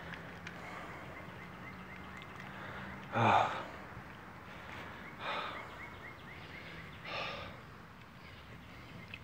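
A person breathing hard while pushing through brush, with short noisy exhales about every two seconds; the loudest, about three seconds in, is a sigh with a low voiced start. Faint rapid high chirping runs underneath.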